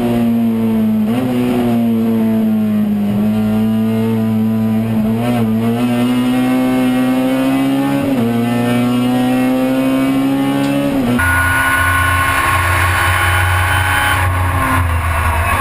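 Touring race car engine heard from inside the cockpit at racing speed, its note climbing and then dropping sharply at gear changes several times. About eleven seconds in it cuts abruptly to a different race car's onboard engine sound with a higher-pitched note.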